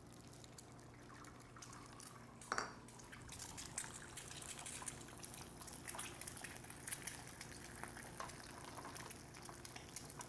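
Egg frying in oil in a hot pan: a short knock about two and a half seconds in, then a faint sizzle full of fine crackles.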